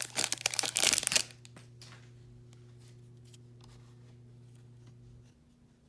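A hockey card pack's wrapper is torn open and crinkled loudly for about a second. Then comes quieter handling of the cards with a few faint clicks, over a steady low hum that stops near the end.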